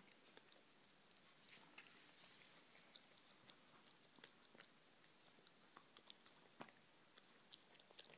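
Alaskan malamute puppy chewing on a rope toy: faint, irregular little clicks of teeth and mouth.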